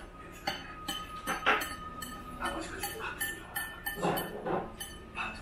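Cutlery and dishes clinking at a meal table: a dozen or so short, sharp taps scattered irregularly over a low background hum of the room.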